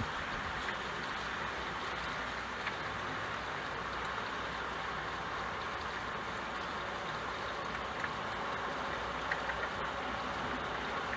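Steady rain: an even hiss with an occasional faint tick of a drop.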